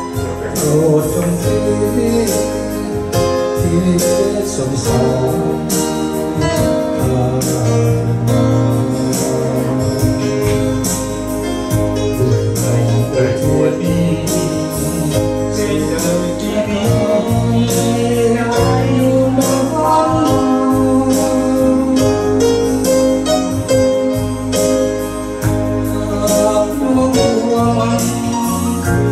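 A man singing into a microphone over electronic keyboard accompaniment with a steady beat.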